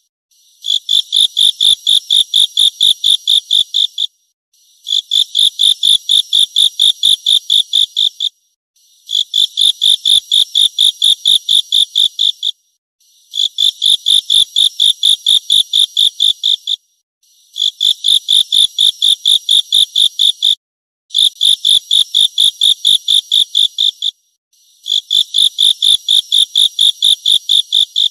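An insect stridulating in long trains of rapid pulses, about four or five pulses a second. Each train lasts three to four seconds and is followed by a short break, so a new train starts roughly every four seconds. The sound is high-pitched and buzzy, with no low sound at all.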